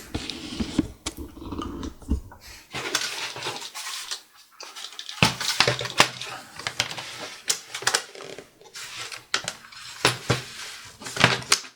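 Irregular clicks, knocks and rattles of a laptop's plastic case being handled, turned over and shifted on a work surface.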